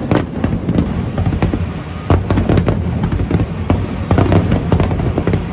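Fireworks display: a dense, continuous string of bangs and crackles, several a second, over a steady low rumble.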